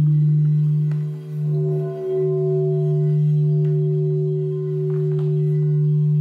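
Frosted quartz crystal singing bowls sounding: a strong, steady low hum that wavers twice near the start, joined about a second and a half in by a higher, sustained bowl tone.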